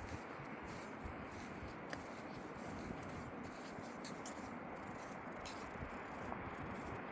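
Steady rushing noise of a seaside beach, wind and surf, with scattered small crunching clicks at irregular intervals.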